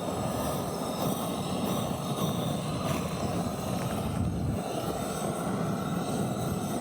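Propane torch burning with a steady rushing flame, used to light a campfire.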